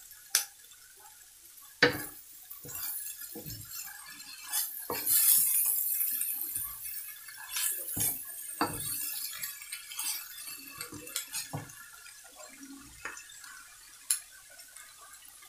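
Wooden spatula scraping and knocking against a wok while shredded vegetables are stir-fried, over a high sizzling hiss. The knocks come irregularly, a sharp one about two seconds in and two more around eight seconds in.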